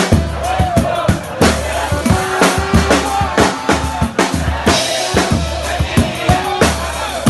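Band music: a drum kit beat with bass drum and snare strikes over a steady bass line, with a wavering melody above.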